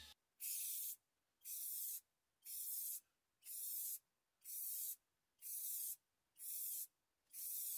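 Aerosol spray can of clear lacquer hissing in eight short bursts, about one a second and each just over half a second long, with silence between.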